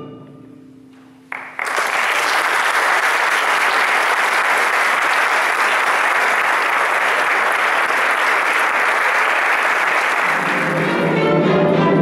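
An orchestra's final held chord dies away, and about a second and a half in the audience bursts into steady applause. Near the end the orchestra begins playing again as the applause fades.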